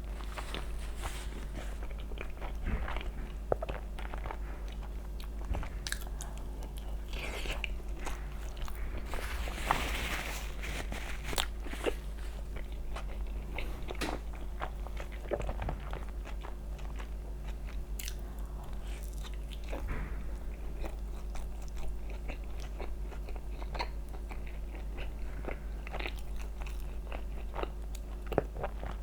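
Close-miked eating: crunchy bites and chewing, many short sharp crunches scattered through, over a steady low hum.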